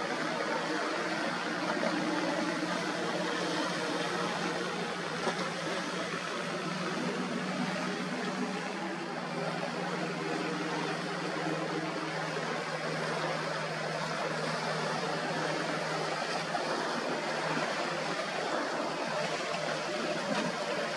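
Motorboat engines droning over a steady rush of water and wind noise, the engine hum fading near the end.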